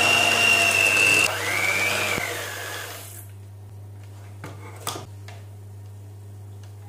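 Electric hand mixer running, beating the last egg into thick choux pastry dough in a steel pot; its motor whine dips briefly about a second in, picks up again, then winds down and stops about three seconds in. After it stops there are a couple of faint clicks over a low steady hum.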